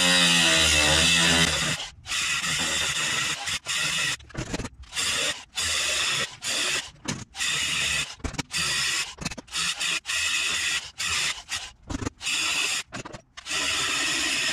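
A power tool cutting sheet-metal spot welds out of a truck's rocker panel. It runs steadily for about the first two seconds, then in many short bursts of under a second each, starting and stopping over and over.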